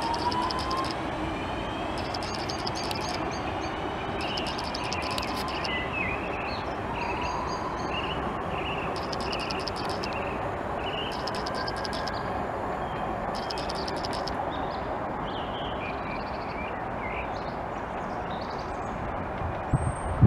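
Class 323 electric multiple unit pulling out and running away, a steady rail rumble with a faint traction-motor whine rising in pitch. Birds chirp over it, and there is a short knock at the very end.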